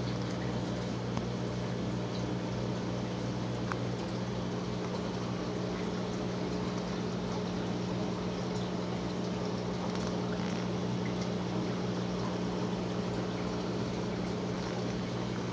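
Aquarium filtration running: a steady electrical hum under a constant trickle and bubbling of water.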